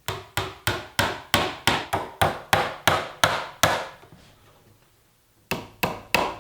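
Hammer tapping finishing nails into a wooden door, quick even blows about three a second; it stops for a second or two, then starts again near the end.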